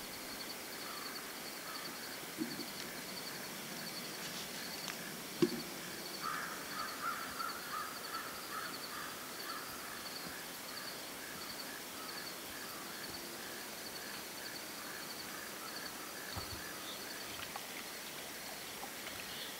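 Evening riverside ambience: insects chirping in a steady, high-pitched pulse, with a bird calling repeatedly for a few seconds in the middle. A single sharp click about five seconds in.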